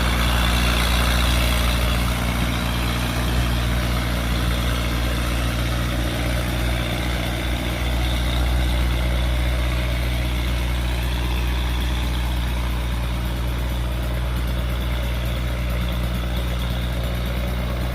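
Diesel engine running steadily at an even, unchanging speed, with a constant low hum.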